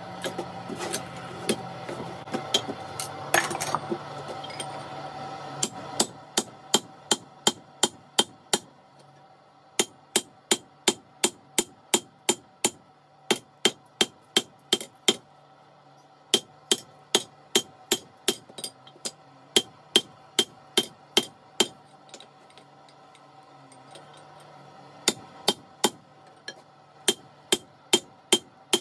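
Blacksmith's hand hammer striking hot steel on an anvil, about two sharp blows a second in runs with short pauses, one strike near the start ringing out louder than the rest. A steady low hum runs underneath, louder in the first few seconds.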